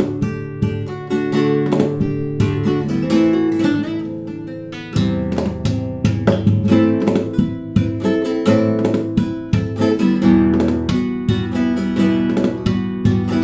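Solo acoustic guitar playing a fast run of plucked notes and strummed chords, easing off around four seconds in and picking up again about a second later.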